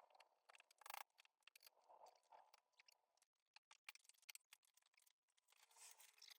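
Faint, irregular clicks and light scrapes, like small tools and parts being handled.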